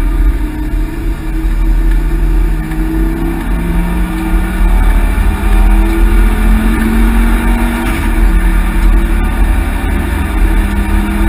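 Ford Focus XR5 Turbo's turbocharged five-cylinder engine pulling hard under load, heard from inside the cabin. The engine note climbs steadily for several seconds, drops once about eight seconds in as the car changes up a gear, then climbs again over loud road and wind noise.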